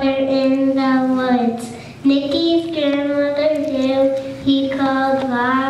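A child singing solo, one voice holding long notes that step up and down in pitch, with short breaks between phrases.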